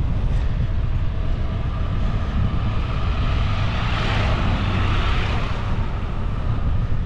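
A three-wheeled motorcycle passing in the opposite lane, its engine swelling to a peak about four seconds in and then fading. Under it runs a steady low rumble of wind on the microphone of a moving bicycle.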